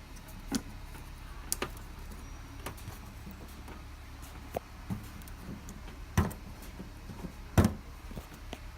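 Cardboard gift box being handled while a fingernail picks at a stuck security sticker: scattered small clicks and taps, with two louder knocks about six and seven and a half seconds in, over a low steady hum.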